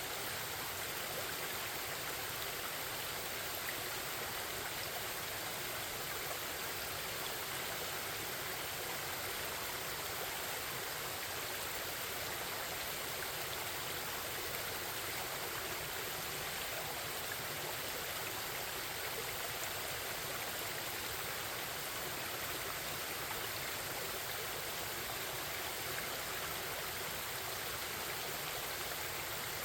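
Forest stream babbling with a steady, even flow of water.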